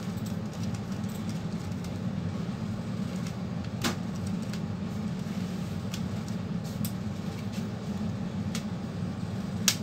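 Light clicks and taps of a screwdriver and small metal and plastic parts as a Dell 1545 laptop's cooling fan assembly is unscrewed and worked loose, over a steady low hum. There is one sharper click about four seconds in, and the loudest comes right at the end.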